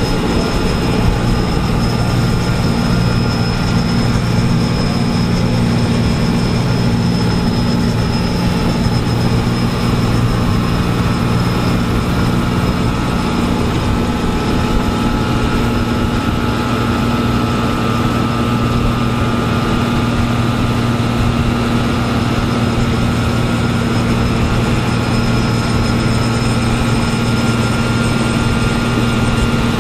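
Heavy diesel construction machinery running steadily under load, a constant deep engine hum with a thin high whine above it.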